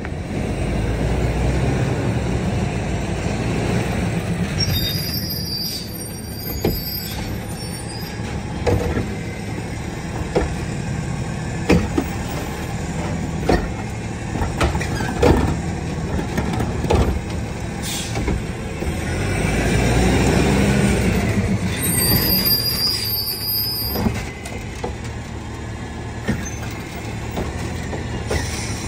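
Automated side-loader garbage truck emptying a wheeled cart: the engine revs as the hydraulic arm lifts the cart, a run of sharp knocks and clanks as the upturned cart is shaken out over the hopper, then the engine rises again as the arm brings the cart back down.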